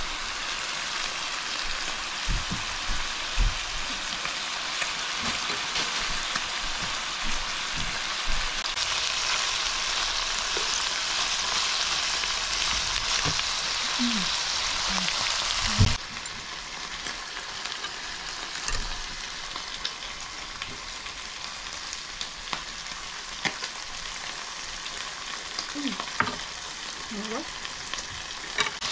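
Chicken pieces sizzling in a round tabletop grill pan: a steady frying hiss that swells for several seconds and then drops suddenly about halfway through, with a few faint clicks.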